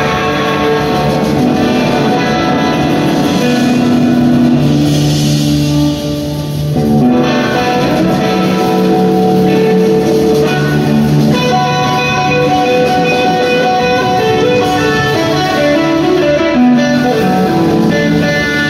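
A live rock band playing an instrumental passage, heard from the audience: electric guitar carrying sustained melodic lines over bass and drums.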